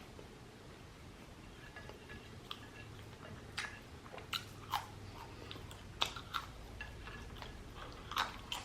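Close-miked chewing of fried shrimp and fries, with a handful of sharper crunches and mouth clicks from about three and a half seconds in.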